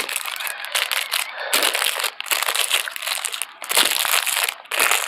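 Close-miked crunching and crinkling of snacks, in irregular spurts with short breaks about once a second.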